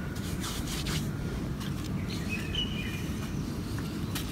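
Dry, gritty brown crumbling material crunching as it is broken up by hand: a few short crunches in the first second and again near the end. Beneath them is a steady low background rumble, with faint bird chirps around the middle.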